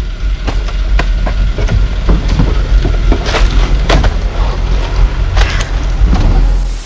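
Irregular sharp knocks and cracks over a steady low rumble, dropping off suddenly at the end.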